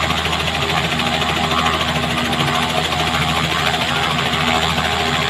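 Robinson R66 turbine helicopter running on the ground, its main rotor turning: a steady engine sound with an even, rapid beat from the rotor.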